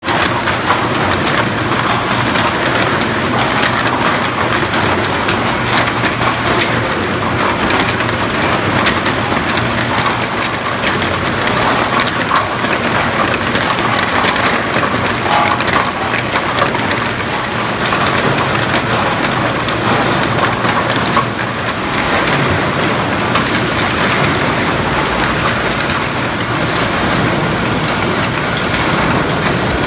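High-speed packaging machine for frozen hamburger patties running, with a steady dense clatter of many rapid clicks over a continuous mechanical noise.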